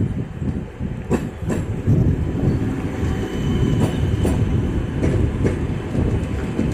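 ŁKA electric multiple unit rolling into the platform past the microphone, a low rumble with a few sharp clicks of the wheels over rail joints. Wind buffets the microphone throughout.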